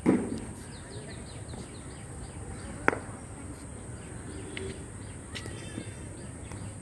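Cricket ball impacts during net practice: a loud thud right at the start and a sharp knock about three seconds in. Birds chirp throughout.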